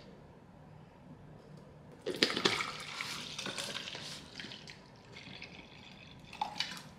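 Water rushing: it starts suddenly about two seconds in and fades away over the next few seconds.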